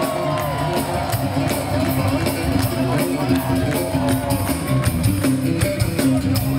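Electric bass guitar played live through the PA as a solo: a run of low notes changing every fraction of a second.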